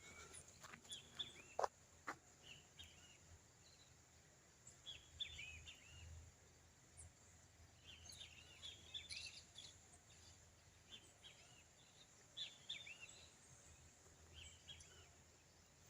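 Faint bird calls: scattered clusters of short chirps, with a couple of sharp clicks about two seconds in.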